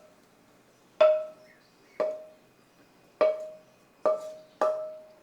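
A metal cooking utensil knocked against the pan five times, roughly a second apart, each knock leaving a short ringing tone, as the food is served out onto a plate.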